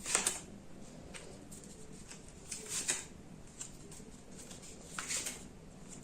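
Tarot cards being handled: three short, soft swishes of cards sliding against each other, at the start, about halfway and near the end.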